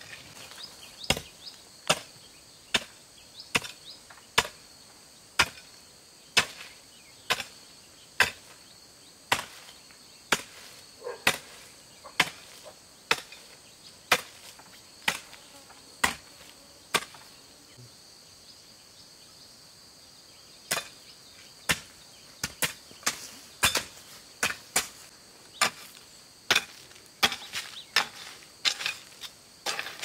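Repeated chopping strokes of a blade or tool into wood, about one a second. They stop for a few seconds past the middle, then resume faster. A steady high drone of insects runs underneath.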